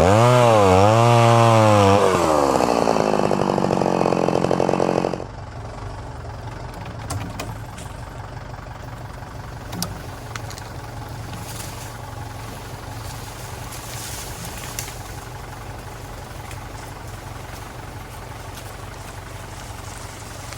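Stihl MS 390 two-stroke chainsaw running hard, its pitch rising and falling as it works through the wood, then dropping and cutting off suddenly about five seconds in. After that a low, steady engine idle carries on underneath with a few light knocks.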